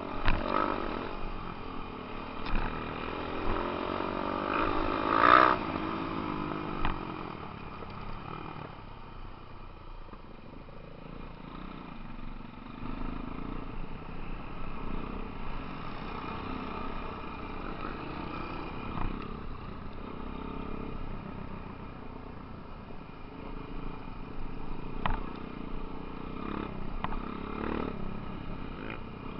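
Dirt bike engines running as a group rides a rough dirt trail, heard from on board one of the bikes; the engine revs up sharply about five seconds in, and a few sharp knocks come near the end.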